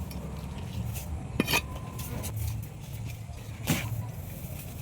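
A knife knocking sharply twice as a white pomfret is cut, the first knock with a short metallic ring, over a steady low hum.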